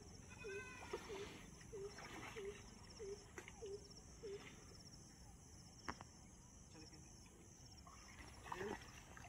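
An animal calling: a run of short, low hooting notes, about two a second, that stops about halfway through. A few higher, drawn-out calls are mixed in, one near the start.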